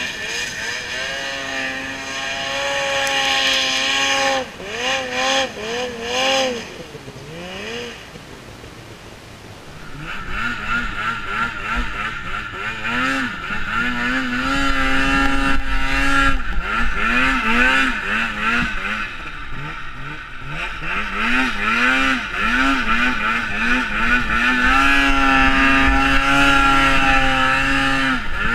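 Polaris snowmobile engine revving up and down over and over as the throttle is worked in deep snow, dropping quieter for a few seconds about a third of the way in. From about ten seconds in, a steady rush of wind on the helmet microphone runs under the engine.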